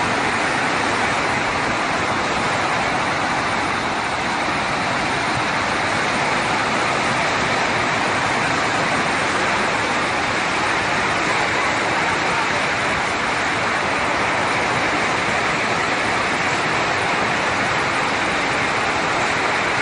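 Steady, loud rush of a muddy flash-flood torrent.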